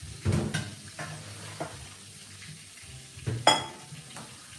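Stainless steel pasta pot and strainer insert knocking and clanking on the stove, a few sharp metal knocks with the loudest, a ringing clink, about three and a half seconds in. Under it runs the steady sizzle of frying.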